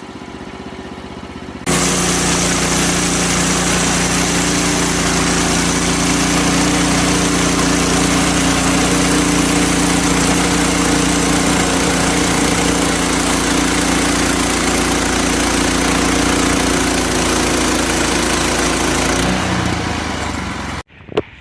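A loud engine-driven machine running steadily with a strong rushing hiss over its hum. It starts abruptly about two seconds in and cuts off suddenly near the end.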